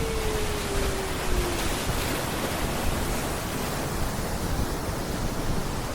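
Steady rush of a waterfall pouring down close by, with a heavy low rumble.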